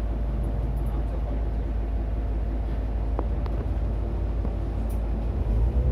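Steady low rumble of a city bus's engine and running gear, heard from inside the cabin, with a few faint rattling ticks and a brief louder surge of rumble near the end.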